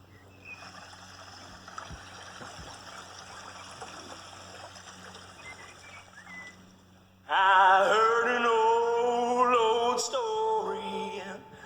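A steady hiss of background noise. About seven seconds in, a solo voice begins singing a hymn unaccompanied, much louder than the hiss.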